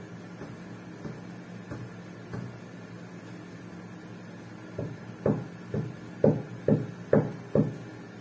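Light knocks on a hard tabletop as hands handle a small clay figure on its clear plastic base: a few faint taps at first, then about seven sharper knocks, roughly two a second, in the second half.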